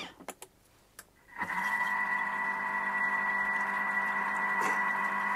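Thermomix TM5 kitchen machine motor running steadily at speed 3, stirring melted white chocolate with evaporated milk. It starts about a second and a half in as a steady, even whine.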